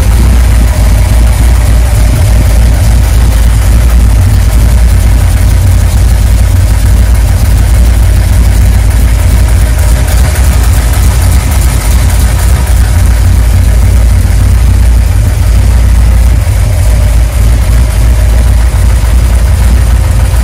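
Freshly built Chrysler 440 big-block V8 with a tunnel ram and two Edelbrock four-barrel carburettors idling steadily and loud, at around 730 to 800 rpm.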